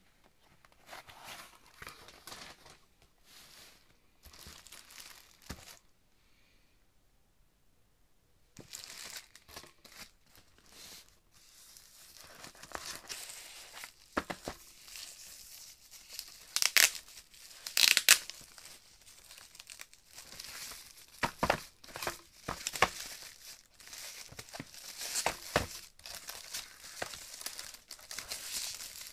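A cardboard box being opened by hand and the white plastic wrapping around the receiver inside crinkled and pulled about, in irregular rustles and crackles. There is a pause of about three seconds a few seconds in, and a couple of sharper, louder crackles about two-thirds of the way through.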